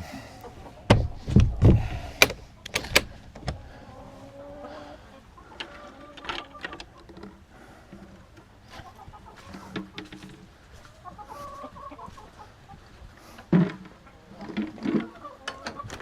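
Chickens clucking and murmuring as the flock settles on the roost for the night. A few sharp knocks and thumps come about a second in and again near the end.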